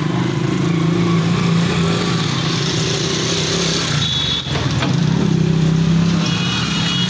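Street traffic with an engine running steadily close by, its low hum rising a little in pitch near the middle. A short high beep with a click comes about four seconds in, and a ring of high tones near the end.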